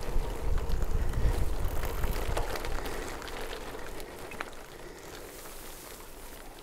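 Gravel-tyred bicycle rolling over a gravel track, the tyres crackling on the loose surface, with low wind rumble on the microphone. It gets quieter after about three seconds.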